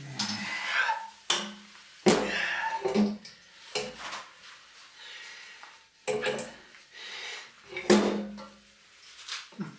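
A heavy aluminium-frame electric motor being manoeuvred by hand into a welded steel frame: irregular knocks and clanks of metal on metal, about eight, some followed by a short metallic ring.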